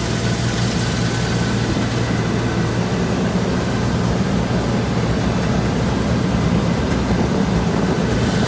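Heavy farm machinery engine running steadily at one even pitch, with a loud constant rush of mechanical noise over it.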